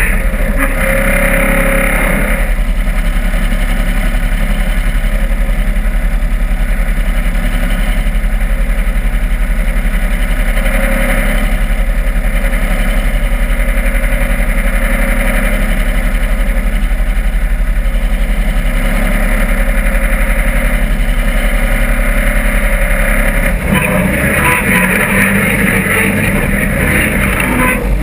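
Off-road buggy's engine running steadily under load while the buggy crawls over dirt, heard close up from inside the open cab. About four seconds before the end its note changes, becoming higher and harsher.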